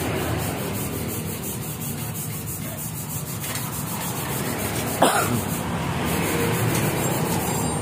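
Gutted stock muffler of a Suzuki Satria FU being worked onto its exhaust header pipe by hand, metal rubbing on metal, with one sharp clank about five seconds in. A steady low hum runs underneath.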